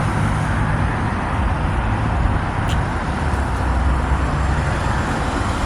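Steady road traffic noise, a continuous low rumble with a hiss over it.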